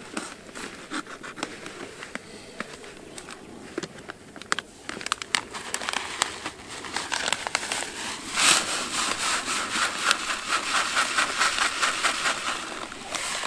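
Plastic bag of fishing micropellets crinkling and crackling as it is opened and handled, then the pellets pouring out in a dense rattle into a plastic bucket of groundbait from about eight seconds in.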